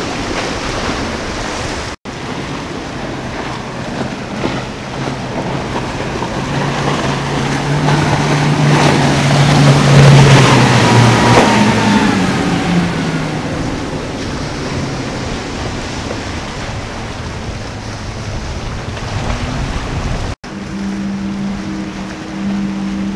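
Outboard-powered center-console boats running at speed past close by: engine drone over the rush of hull spray and wake. The loudest pass swells to a peak about ten seconds in, then drops in pitch as the boat goes by. The sound breaks briefly twice at edits between boats.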